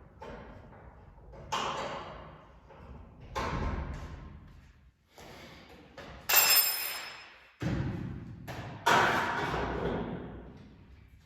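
A series of knocks and clanks, roughly one every second or two, each dying away with echo. The loudest, about six seconds in, rings like struck metal.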